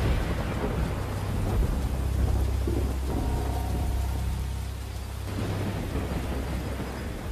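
Steady rain with a long, deep rumble of thunder that dies away near the end.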